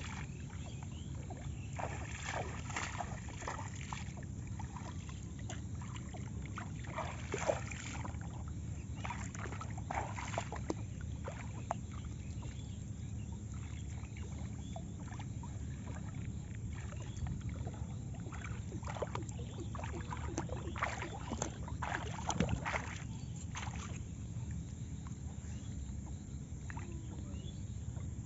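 Shallow floodwater splashing and dripping in short, irregular bursts as a thin current net (gill net) is drawn up out of a flooded paddy field and someone wades in the water. A steady low rumble runs underneath.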